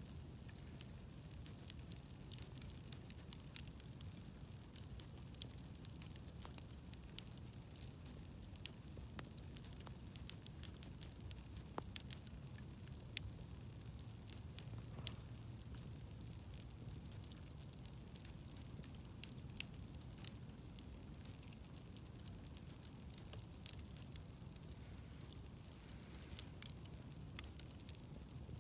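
Wood campfire burning, with irregular sharp crackles and pops over a steady low rumble of the flames.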